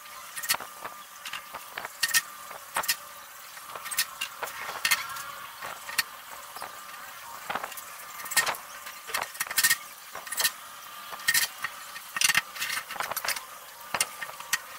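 Irregular clicks and knocks of a bar clamp and plywood panels being handled as a plywood cabinet box is clamped together, over a steady background hum.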